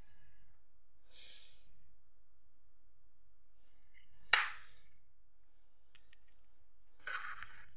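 Small handling noises of make-up items: a short rustle about a second in, one sharp plastic-sounding click a little past four seconds, a few faint ticks, and another short rustle near the end as a small clear plastic case is handled.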